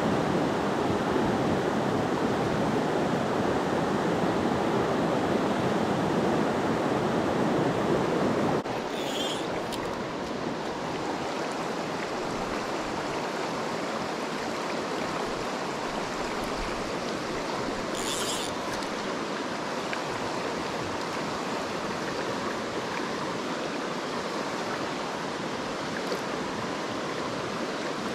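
Steady rush of river current flowing over rocks close to the microphone. It steps down a little in level about eight and a half seconds in.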